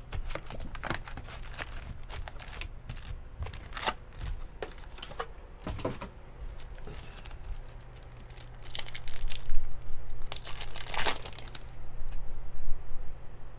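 Trading-card pack wrappers crinkling and tearing as packs are opened, a run of short crackles that grows louder about nine to eleven seconds in.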